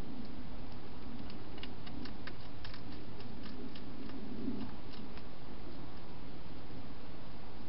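Wild hedgehog feeding at a bowl: a run of small, quick, crisp clicks of eating, heaviest from about a second and a half in to about five seconds, over a steady low hum.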